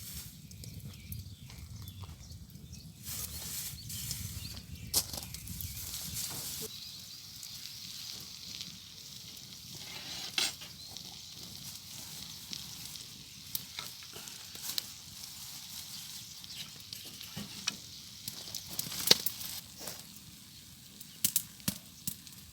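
Pork belly sizzling on a hot stone grilling plate: a steady hiss with sharp pops now and then.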